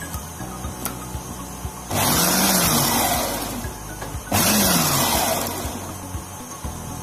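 Small electric food processor pulsed twice, its motor spinning up and winding down each time as the blade coarsely chops cashews into chillies. The first pulse is about two seconds in and lasts just over a second; the second, shorter one comes near the middle. Background music plays underneath.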